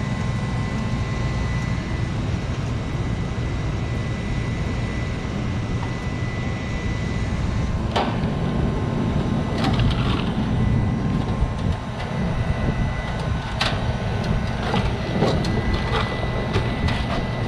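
Steady hum and rumble of running refrigeration and air-conditioning equipment, with a few sharp clicks and taps of metal parts being handled several seconds in.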